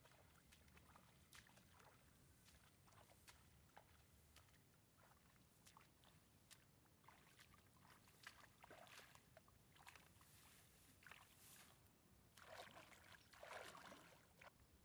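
Near silence with faint rustles and small clicks of someone moving through tall grass, growing into a louder stretch of rustling shortly before the end.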